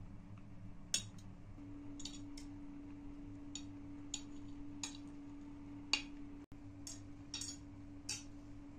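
Metal forks and spoons clinking and scraping against china plates during a meal: about a dozen short, irregular clinks, the loudest about a second in and again near six seconds.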